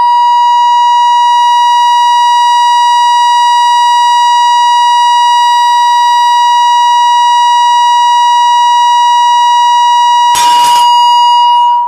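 A loudspeaker plays a loud, steady tone just under 1 kHz, tuned to a glass beaker's resonant frequency so that the beaker vibrates with it. About ten seconds in, a short crash comes as the beaker shatters from the resonance.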